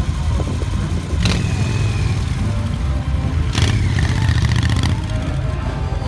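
Motorcycle engine running with a steady low rumble, revved up twice: briefly about a second in, then longer about three and a half seconds in.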